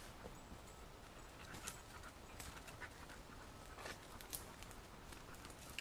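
Faint, irregular crunching and rustling of dry leaf litter and twigs underfoot, with a hunting dog panting.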